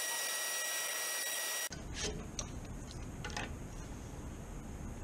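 Bandsaw blade cutting mirror plexiglass letters, a steady hiss with a high whine that cuts off abruptly under two seconds in. After that comes a lower steady rumble with a few sharp plastic clicks as the cut letters are handled on the saw table.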